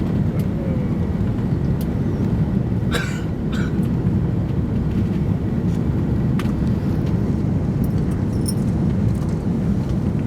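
Steady low rumble of an Airbus A330-300 with Rolls-Royce Trent 700 engines as it comes in to land. Two brief crackling noises come about three seconds in.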